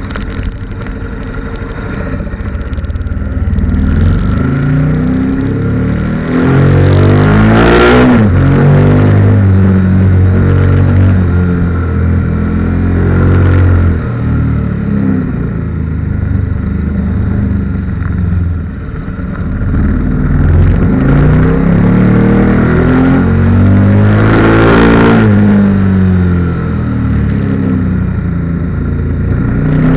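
KTM 1290 Super Duke R's V-twin engine heard from on the bike, the revs rising and falling as the rider accelerates and backs off through the bends. It climbs sharply twice, about a quarter of the way in and again near the end.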